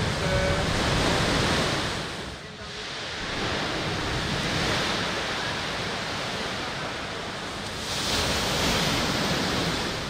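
Large artificial waves breaking and churning in a concrete wave-test flume: a continuous rush of crashing white water, louder in a surge at the start and again near the end.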